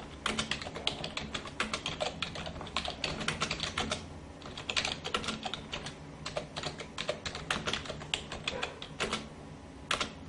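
Computer keyboard typing: a rapid, irregular run of key clicks used as a typing sound effect, over a faint low hum.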